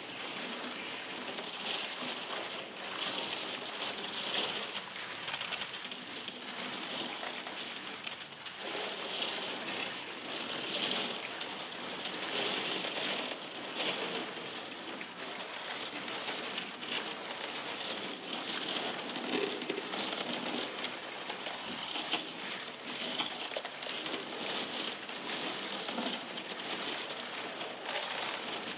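Dense, continuous crackling and fizzing of thawing pond ice sheets cracking and breaking, used as material in an electronic sound collage.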